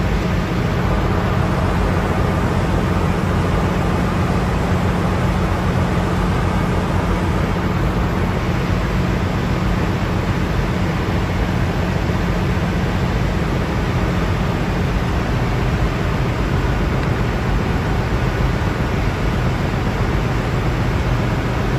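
Steady machinery noise of a ship's machinery space: a dense, unchanging hum with low steady tones.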